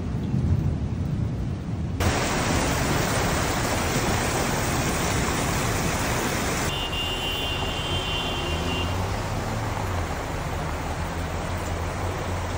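Rainstorm: a low rumble of thunder at first, then an abrupt change about two seconds in to a steady hiss of rain and rushing muddy floodwater. In the second half a vehicle's low engine hum runs under the water.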